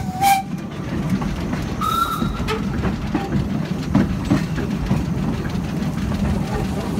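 Narrow-gauge steam locomotive running along the track, with a steady low rumble and the knocking clatter of wheels and couplings. A whistle cuts off just after the start, and a short, higher whistle toot sounds about two seconds in.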